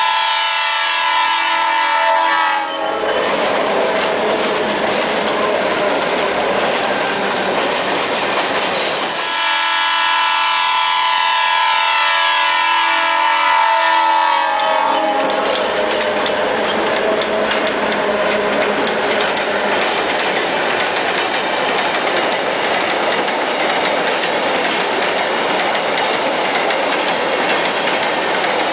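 Diesel freight locomotives sounding a multi-tone air horn for a grade crossing: a short blast at the start, then a long blast of about six seconds from about a third of the way in. Between and after the blasts comes the steady rumble and rattle of the train rolling past.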